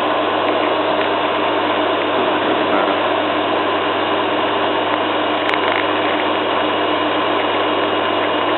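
Zanussi FLA1002W washing machine spinning a duvet load at a steady speed, a constant running noise with a low hum. The load is nearly perfectly balanced, with only a small bounce and slight vibration.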